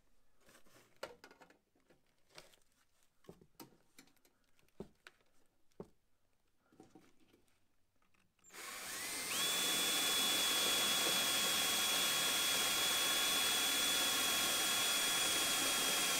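A few faint taps and clicks of handling. About eight and a half seconds in, a cordless drill spins up with a rising whine and runs at a steady high pitch, drilling into the aluminum radiator panel.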